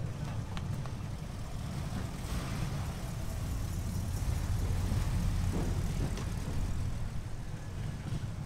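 Old cars' engines running low and steady as they roll slowly past one after another, loudest as a car passes close about four to five seconds in.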